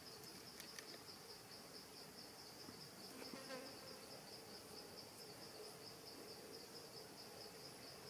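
Faint, steady high-pitched insect chirring with a rapid, even pulse, with a couple of faint clicks in the first second.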